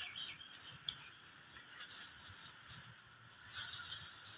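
Crinkly rustling of a plastic bag worn as a glove while sausages are turned by hand on a wire-mesh grill over a wood fire, coming in about three spells with small crackling clicks.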